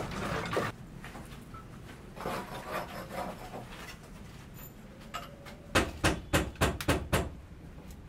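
A hand tool scraping against a lightweight concrete block wall, with more scratching a couple of seconds in. Near the end comes a quick run of about seven sharp knocks, the loudest sound.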